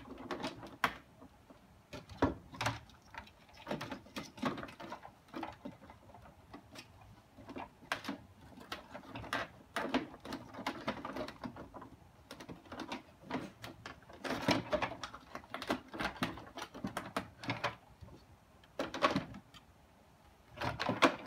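Irregular clicks, knocks and rattles of hard plastic and metal parts being handled as the motor and cord-reel assembly of an Electrolux Epic 6500 canister vacuum is fitted back into its plastic housing. The clicks come in clusters, with the loudest knock near the end.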